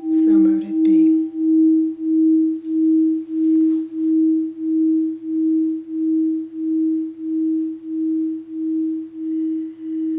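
Crystal singing bowl ringing on one steady tone with an even wobble of about two pulses a second, slowly fading. There is a brief rustle about half a second in.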